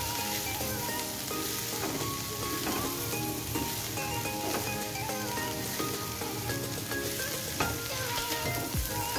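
Green beans, chillies and kikil sizzling in oil in a nonstick wok as a spatula stirs them, with a few sharper scrapes or knocks of the spatula against the pan. Background music with changing notes runs underneath.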